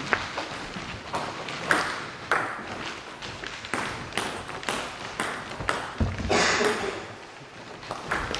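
Table tennis ball clicking sharply off the bats and table. A few single clicks come early, then a rally of about two hits a second. Just after the rally there is a noisy burst lasting about a second.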